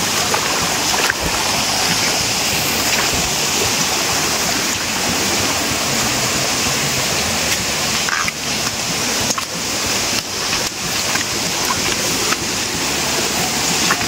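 Steady rushing of flowing water from a stream or waterfall, an even hiss. In the second half a few brief knocks break in.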